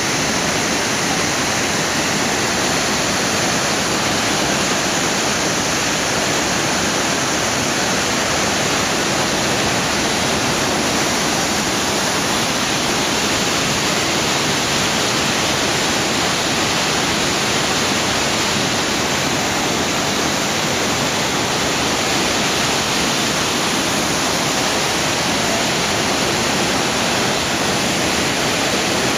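Floodwater pouring over a river weir in spate after heavy rain: a loud, steady rush of churning white water.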